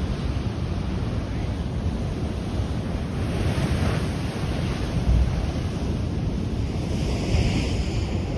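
Ocean surf washing over a rocky shore, a steady rushing wash that swells about three seconds in and again near the end, with wind buffeting the microphone.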